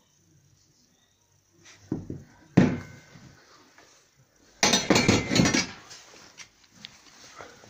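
Metal clanking as a chrome motorcycle exhaust pipe is handled: two knocks about two seconds in, the second ringing briefly, then about a second of rattling clatter near the middle.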